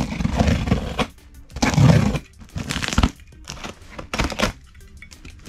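A metal box cutter slicing and scraping through duct tape and plastic wrap on a cardboard box, with the plastic crinkling, in several irregular strokes and a sharp crack about three seconds in.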